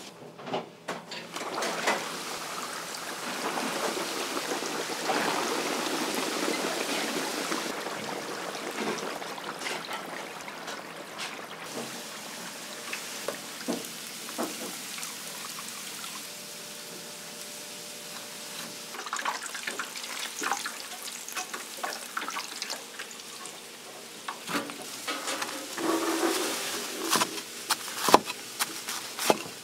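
Restaurant kitchen cooking sounds: a steady hiss, loudest over the first ten seconds or so, with scattered clinks and knocks of pans and utensils that grow busier near the end.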